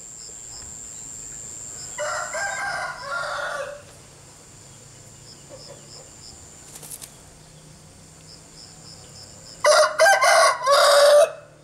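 A rooster crowing twice, each crow lasting under two seconds, with a faint regular chirping of insects underneath.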